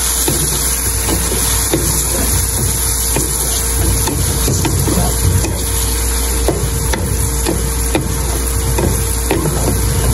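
Mutton pieces sizzling in oil in an aluminium pot while a wooden spatula stirs them, with irregular scrapes and knocks of the spatula against the pot. A faint steady hum runs underneath.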